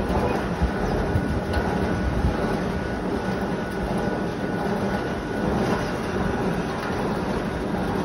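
Electric fan running steadily, a constant whooshing hum with a rough, fluttering low end.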